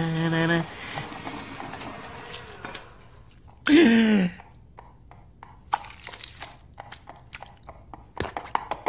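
A man humming a held note that breaks off just after the start. A short falling vocal sound comes about four seconds in, then scattered soft clicks.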